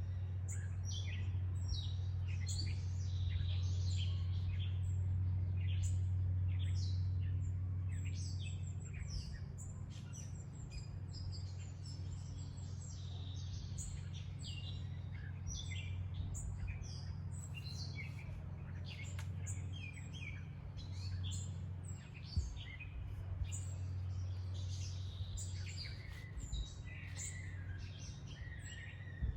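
Many small birds chirping and calling over and over, over a steady low hum that is strongest for the first several seconds.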